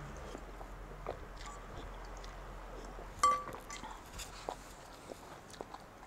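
An eating utensil clinks once against a ceramic bowl about three seconds in, ringing briefly. Scattered soft clicks of eating run around it.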